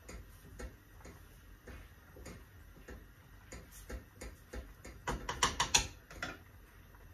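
Wooden spoon stirring pasta in a stainless steel pot, knocking lightly against the metal now and then, with a quick run of louder clacks about five seconds in.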